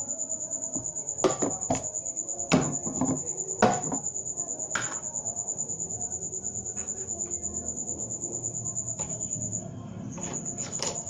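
A cricket chirps in a steady, rapid, high-pitched trill, briefly stopping near the end. In the first five seconds there are several sharp clicks and knocks as slime containers are handled.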